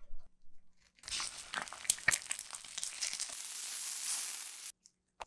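Raw bacon strips sizzling and crackling on a hot cast-iron griddle, with sharp pops through a steady hiss. The sizzle starts about a second in and cuts off sharply near the end.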